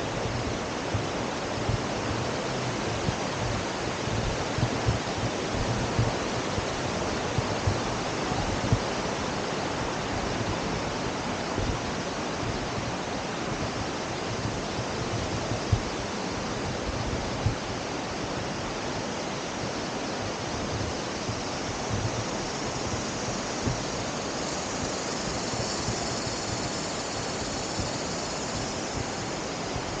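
Steady rush of a shallow river running over rocks, with low wind buffeting on the microphone.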